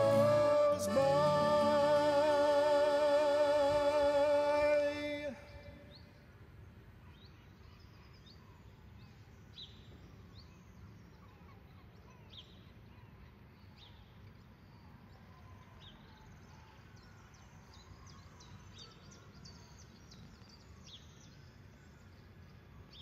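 A song's final held chord rings for about five seconds and then stops, leaving faint outdoor ambience with birds chirping on and off.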